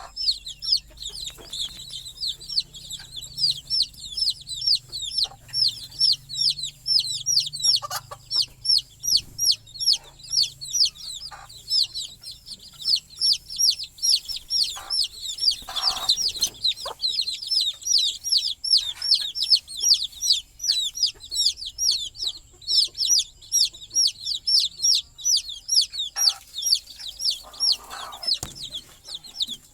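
A brood of baby chicks peeping nonstop, a dense stream of short high chirps, with a few scattered soft knocks among them.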